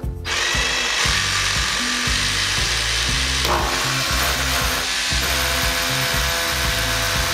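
Hilti cordless rotary hammer drill boring into a plastered wall, running steadily, to make holes for wall plugs for a shelf bracket.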